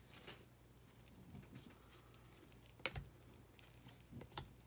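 Near silence broken by a few faint clicks of chrome trading cards being flipped and slid against each other in a gloved hand, the sharpest about three seconds in.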